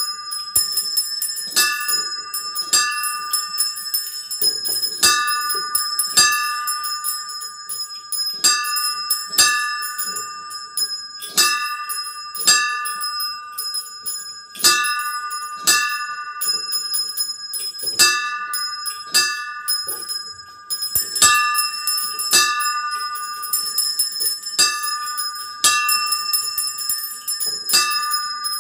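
Small bells on a homemade model bell frame being rung in the Spanish manner, with at least one swung full circle over its headstock. The clappers strike irregularly, about once or twice a second, and each strike rings on into the next.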